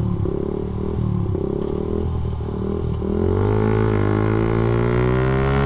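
Suzuki Satria FU motorcycle engine running under way, its pitch wavering and dipping for the first three seconds, then rising steadily as the bike accelerates.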